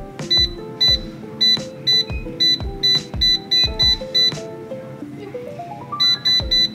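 Digital air fryer's touch-panel control beeping at each button press as the cooking temperature is raised: a run of short, high beeps about two a second, a pause, then three quick beeps near the end. Background music plays underneath.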